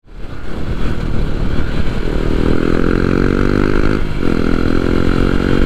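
Hero XPulse 200 4V's single-cylinder engine running under way, its note climbing, dropping briefly about four seconds in, then climbing again, over a low rumble of wind and road noise.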